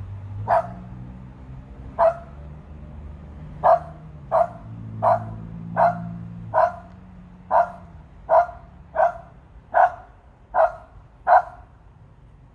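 A dog barking in single sharp barks, thirteen in all: two spaced out at the start, then a steady run about every three-quarters of a second. A low steady hum runs underneath through roughly the first two-thirds.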